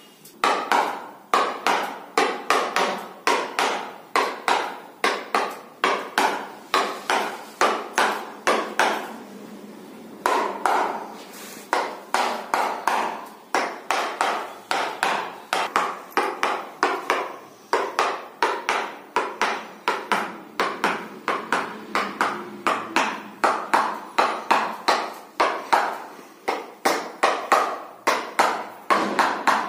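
Rapid rhythmic striking, about three sharp blows a second, stopping briefly about a third of the way in and again a little past halfway before carrying on.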